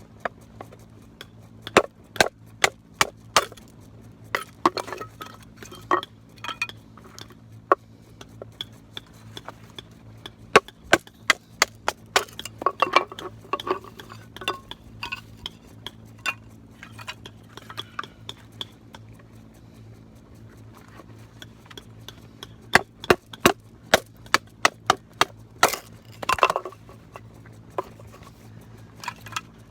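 Camping gear being handled: sharp clinks and knocks of metal and wood, in irregular clusters with pauses between.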